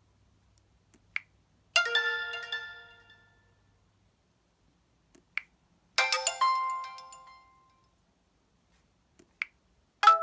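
LG Spirit phone ringtone looping: a short snap-like click, then a bright chiming chord that rings out and fades over about a second and a half. The pattern repeats about every four seconds.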